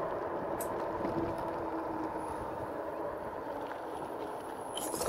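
Steady rolling and wind noise of a 2018 RadRover electric fat-tyre bike being ridden, with a faint hum from about half a second to two seconds in.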